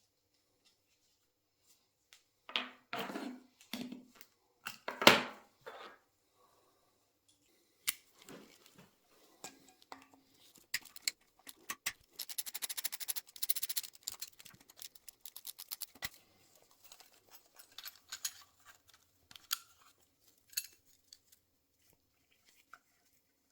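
Hand tools working on a Yamaha R1 engine's top end: metal clinks and knocks, loudest a few seconds in, then a couple of seconds of rapid, even clicking in the middle.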